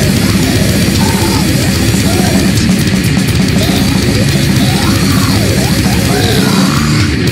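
Goregrind music: a loud, dense wall of heavily distorted guitar, with wavering, gliding notes above it through the middle.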